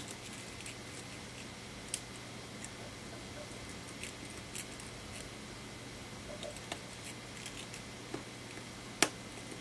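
Small scattered ticks and taps of handling parts inside an iPhone 6S, over a faint steady hum, with a sharper click about nine seconds in as a flex cable connector is pressed onto its socket.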